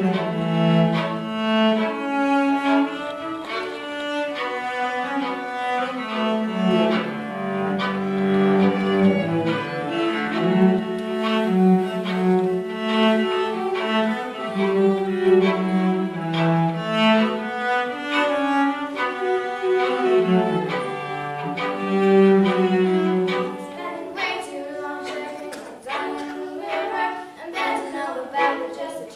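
A small string ensemble playing a medley of a pop song and a traditional fiddle tune, low sustained bass notes under a bowed melody. Near the end the playing thins out into shorter, separate strokes.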